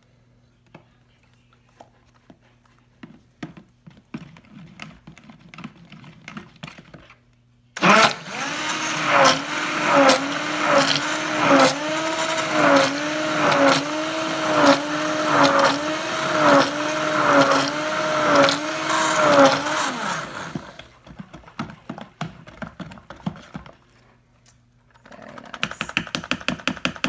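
Hand-held immersion (stick) blender mixing raw soap batter with ground coffee, bringing it toward a thicker consistency. It starts about a third of the way in, runs for about twelve seconds with its pitch rising and falling about once a second, then stops. A fast run of clicks follows near the end.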